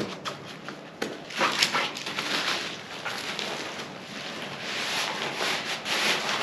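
Nylon fabric of a Big Agnes Copper Spur HV UL2 ultralight tent and its stuff sack rustling and crinkling as the packed tent is unstrapped and pulled out by hand, with a few sharp clicks near the start.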